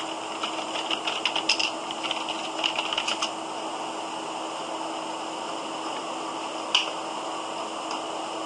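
Computer keyboard typing, a quick run of key clicks over the first three seconds or so, then a single click near the end, over a steady hiss with a faint hum.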